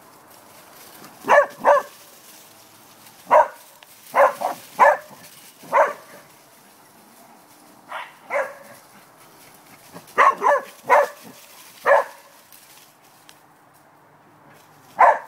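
Corgi barking: about fourteen short, sharp barks, some single and some in quick runs of two or three, with pauses of a second or two between.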